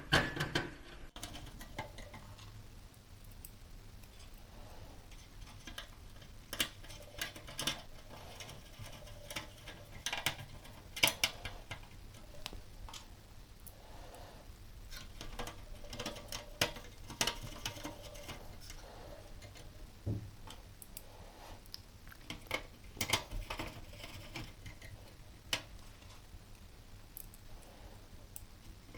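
Irregular clicks, taps and light clatter of computer parts being handled and fitted back into a small desktop PC's metal case during reassembly.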